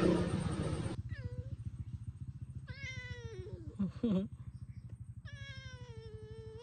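A domestic cat meowing three times: a short meow about a second in, another near the middle, and a longer drawn-out meow near the end, over a faint steady low pulsing hum.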